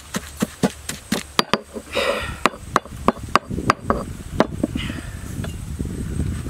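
Stone pestle pounding a chilli mix in a heavy stone mortar: quick dull thuds about four a second, with a short break about a second and a half in. The pounding stops about five seconds in, leaving steady low background noise.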